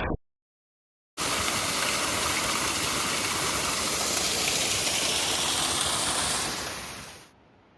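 After about a second of dead silence, a waterfall rushes loudly and steadily, then fades out near the end.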